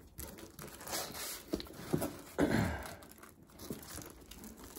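Plastic protective sleeves of 45 rpm records crinkling and rustling, with a few light clicks, as sleeved singles are handled and pulled from a record case.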